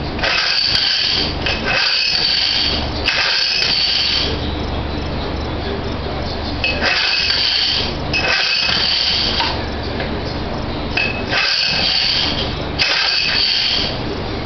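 Small two-stroke boat motor running: a steady low idle broken by about seven short revs of a second or so, each a high buzz that drops back to idle.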